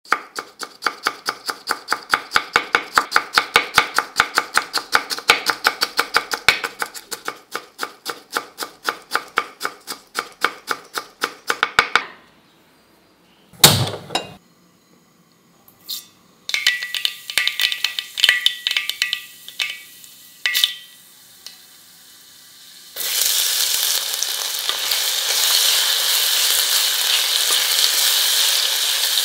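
A chef's knife rapidly chopping ginger on a wooden cutting board, about four strokes a second for roughly twelve seconds. Then comes a single loud whoosh as the gas burner lights, and a few metallic clinks from the pan. From about 23 seconds the chopped ginger sizzles steadily in hot oil in a kadai while a spatula stirs it.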